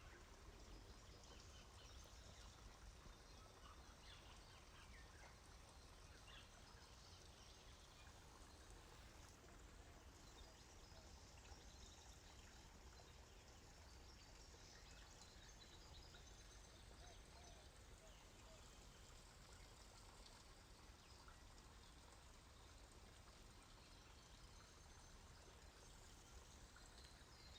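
Near silence: faint outdoor ambience of a trickling stream as a steady hiss, with a few faint, scattered bird chirps.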